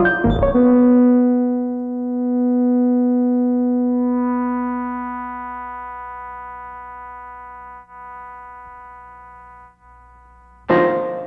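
Electronic music on the RCA Mark II synthesizer: a flurry of quick notes gives way to a long held tone, joined about four seconds in by a higher sustained tone, both slowly fading, until a sudden loud burst of rapid notes near the end.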